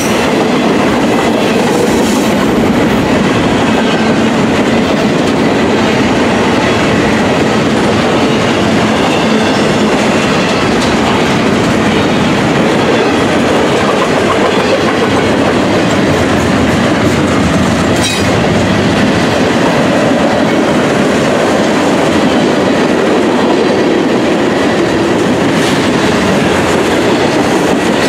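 Norfolk Southern freight train's double-stack intermodal cars and a covered hopper rolling past close by: a steady, loud rumble of steel wheels on rail, with a few sharp clicks.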